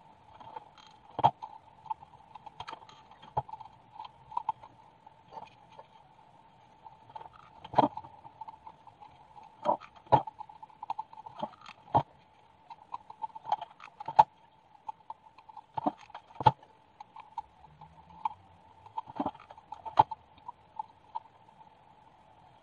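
Irregular knocks and clicks of handling: a glass bottle turned and set down, and foam pieces picked up and pressed on, over a faint steady hum.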